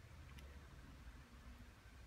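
Near silence with one faint click about half a second in, as a Lightning cable connector is pushed into an iPad's charging port.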